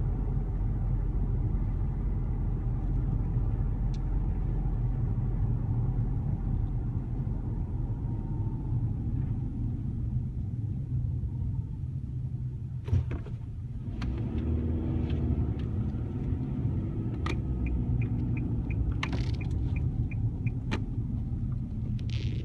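Inside a moving car with the windows closed: steady low road and engine rumble. A single sharp knock about halfway through, and a regular light ticking starts near the end.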